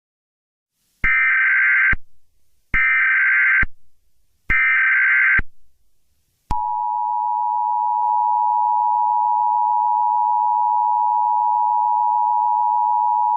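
Emergency Alert System tones: three short, screechy data bursts of the digital header, each just under a second long, then, about six and a half seconds in, the steady two-tone attention signal, a continuous dual-pitch beep held without a break.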